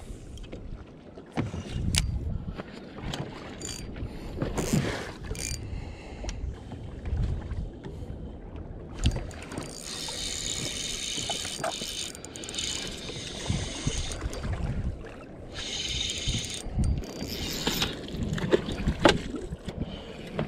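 Wind buffeting the microphone and water slapping against the hull of a bass boat, with scattered clicks and knocks from handling a spinning rod and reel. Twice, about ten and fifteen seconds in, a high whirring lasts around two seconds.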